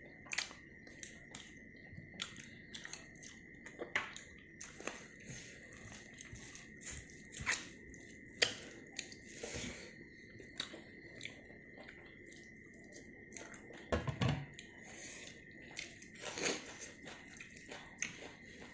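Close-miked chewing of pork: a run of wet mouth clicks and smacks, a few of them louder, over a faint steady high whine.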